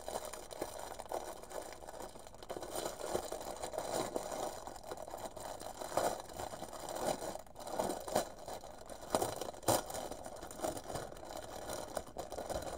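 Clear plastic bag of embroidery floss crinkling and rustling as it is handled and pulled open: irregular small crackles and scrapes with no steady rhythm.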